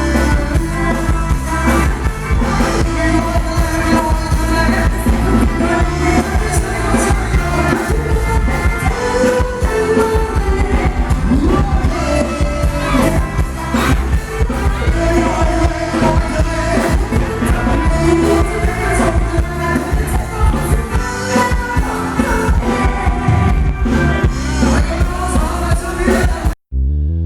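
Live band playing Thai ramwong dance music with a singer over a steady beat. The sound cuts out for an instant near the end.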